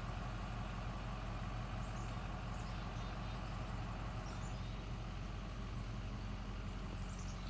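Truck engine idling steadily: a low, even hum.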